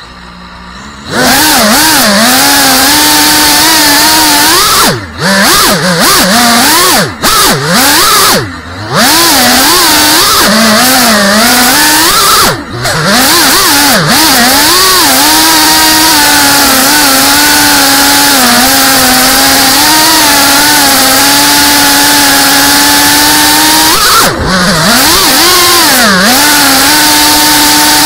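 FPV quadcopter's electric motors and propellers whining, spinning up about a second in. The pitch swings rapidly up and down and cuts out briefly several times, holds fairly steady for a stretch, then wobbles again near the end: the shaky, unstable flight of a quad with a broken gyro.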